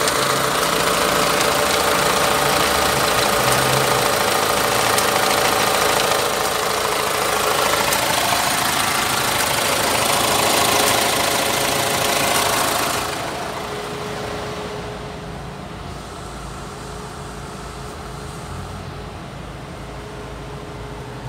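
Nissan Navara's 2.3-litre four-cylinder diesel idling steadily with the bonnet open. About thirteen seconds in the sound drops and turns muffled, heard from inside the cab with the engine still idling.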